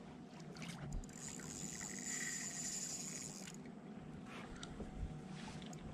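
Faint water lapping around a small boat, with a high steady buzz that starts about a second in and cuts off abruptly after about two and a half seconds.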